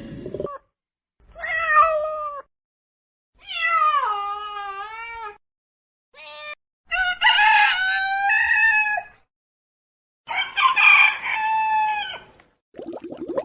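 Animal calls, cat meows and rooster crows, heard as five separate pitched calls with short silent gaps between them; the longer calls waver and fall in pitch.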